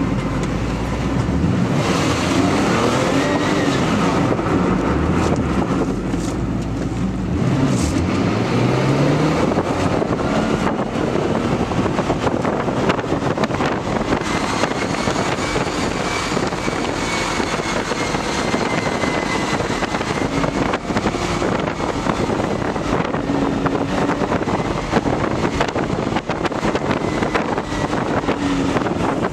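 Porsche 993 Turbo S twin-turbocharged air-cooled flat-six heard from inside the cabin while driving, the engine pitch climbing several times as it is revved up through the gears, over steady road and wind noise.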